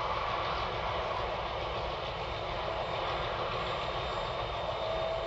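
Ore train's diesel locomotives running, a steady rumble.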